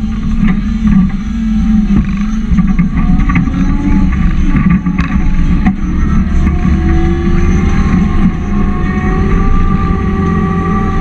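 John Deere 324G skid steer's diesel engine running loud and steady under work while plowing snow with a pusher box. A thin whine over the engine rises slightly in pitch in the second half.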